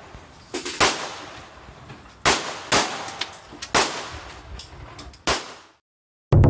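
Gunfire at a shooting range: five loud shots at irregular intervals, with fainter shots from farther off between them. They stop for about half a second, and then music with a deep drum-like hit comes in at the very end.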